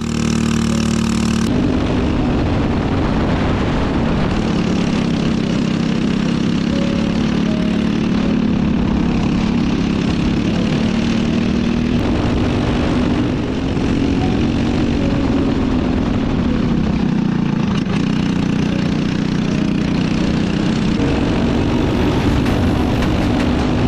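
Small four-stroke go-kart engine running at high revs, its pitch wavering a little up and down as the kart is driven.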